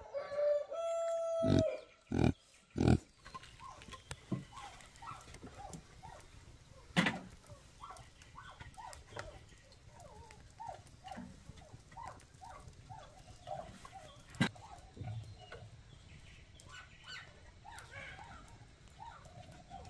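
A rooster crows once, a held call of about a second and a half, followed by three loud knocks. Then scattered short, soft clucking of chickens, with a few sharp knocks.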